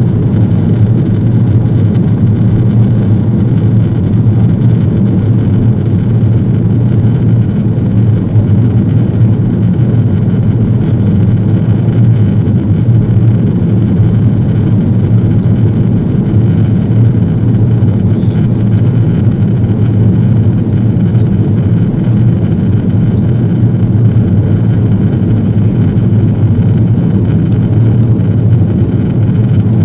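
Steady, loud low-pitched engine and airflow noise inside the cabin of an Airbus A330-200 climbing out after takeoff.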